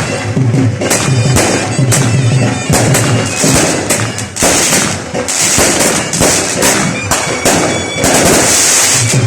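Firecrackers going off in rapid strings of bangs and crackles, with hissing stretches in the middle and near the end, over loud wedding band music with a steady reedy wind tone.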